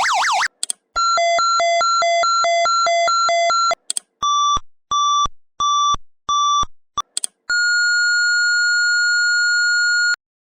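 Electronic alarm buzzer of a Qlight signal light cycling through its sound patterns. A sweeping siren tone stops, then comes a fast two-tone warble alternating between a low and a high pitch, then four short intermittent beeps, then a steady continuous tone that cuts off suddenly, each pattern set off by small clicks.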